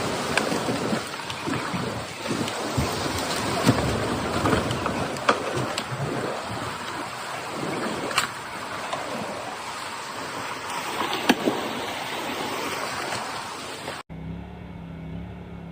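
Loud, steady rushing of a floodwater torrent, with scattered sharp knocks and clicks over it. About fourteen seconds in it cuts off suddenly to a much quieter low, steady hum.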